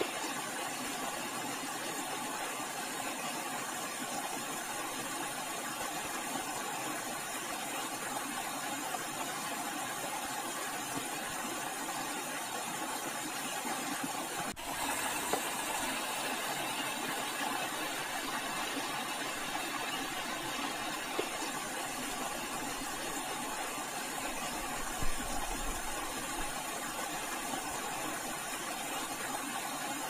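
Shallow stream running over rocks, a steady hiss of water, with a couple of brief knocks.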